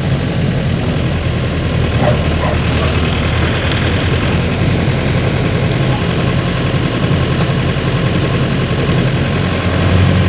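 Mercedes-Benz LO 814 bus's diesel engine running steadily while the bus moves slowly, heard from inside the driver's cab.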